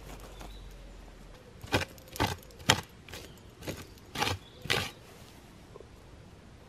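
A long wooden stick scraping and jabbing through the ash and soil of a burnt-out fire pit in about seven quick strokes, from about two seconds in to about five seconds in.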